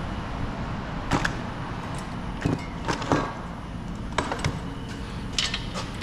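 Hand tools and sockets clinking and knocking on a metal tool cart, a handful of short sharp clacks about a second apart, over a steady low hum.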